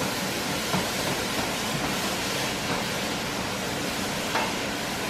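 Steady hiss of vegetables frying in a pan on the stove, with a couple of light clicks about a second in and near the end.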